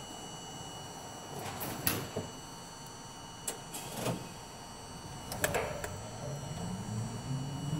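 R42 subway car standing at a platform with a steady equipment hum and a few sharp clicks and knocks; about six seconds in, the traction motors start a whine that rises steadily in pitch as the train begins to pull out.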